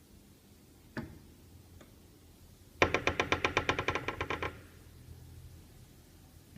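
Bodyguard 5/2 entrance door creaking: a click about a second in, then a loud, rapid stuttering creak lasting about a second and a half. The door has taken on this squeak within four days of being installed.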